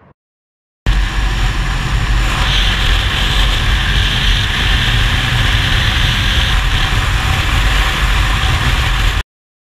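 Kawasaki 650 parallel-twin motorcycle running at a steady road speed, heard from the bike itself with wind noise over the microphone. The sound starts suddenly about a second in and cuts off suddenly near the end.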